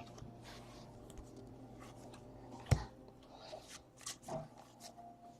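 Faint rustling and light clicks of trading cards being handled and sorted, with one sharper knock a little under three seconds in.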